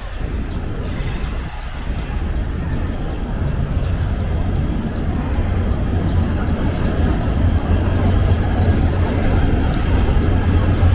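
Diesel locomotive hauling a passenger train as it approaches, its low engine rumble growing steadily louder as it nears.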